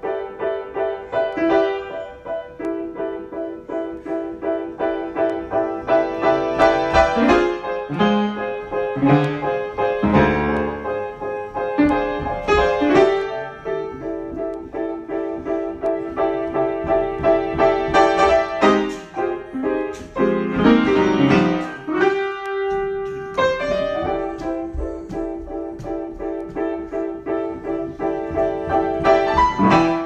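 Solo grand piano improvisation: a continuous flow of struck notes and ringing chords, thinning out briefly about three quarters of the way through.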